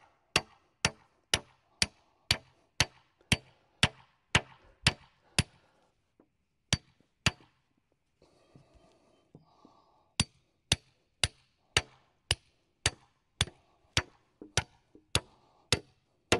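Hammer blows driving a metal conduit stake into the ground, sharp ringing strikes about two a second. The strikes come in a long run, then two more, then a pause of a few seconds, then a second long run.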